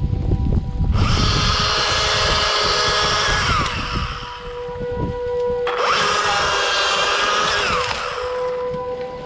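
Chainsaw revving up to full speed and cutting wood twice, each cut lasting two to three seconds, the engine dropping back as each cut ends.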